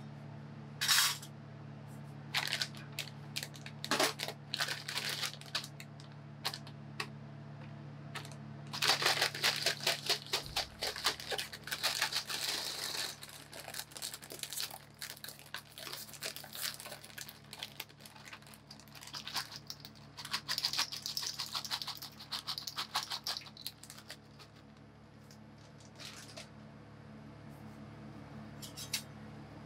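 Plastic snack bag crinkling and tearing as it is opened and handled, in irregular bursts of crackle, over a low steady hum.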